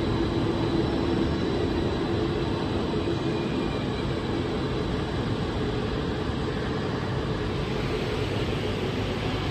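Electric passenger train running on the tracks of a covered station hall: a steady rumble and hum that slowly fades.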